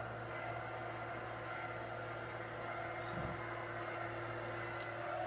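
Litter-Robot Open Air's drive motor humming steadily as the globe turns through its empty cycle.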